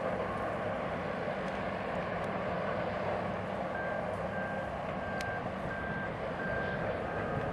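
A vehicle's reversing alarm beeping, starting about halfway through, with an even high beep roughly every two-thirds of a second. Beneath it is a steady, even rumble.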